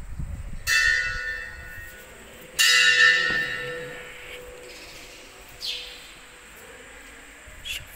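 Temple bell struck twice, about two seconds apart, each strike ringing out and slowly fading. Fainter knocks follow later.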